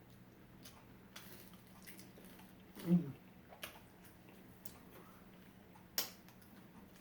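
Close-up eating sounds: quiet chewing with a few sharp mouth or utensil clicks, and a brief low vocal hum about three seconds in.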